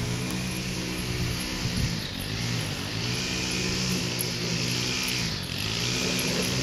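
An engine running steadily, its pitch dipping and recovering briefly twice.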